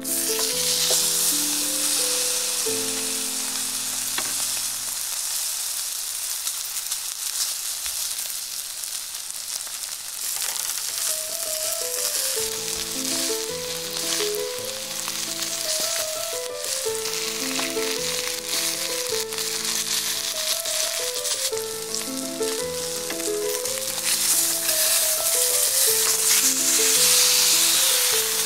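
A 1.1 kg porterhouse steak sizzling hard in a hot cast-iron skillet; the sizzle starts suddenly as the steak goes into the pan and stays steady. Soft background music plays under it, dropping out for a few seconds early on.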